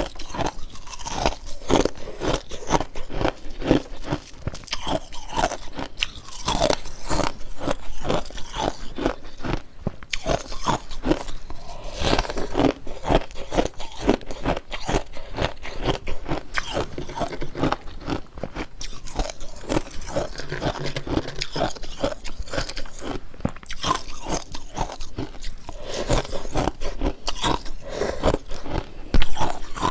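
A person biting and chewing ice that formed from a humidifier: a fast, continuous run of crunches, several a second, with one louder crunch near the end.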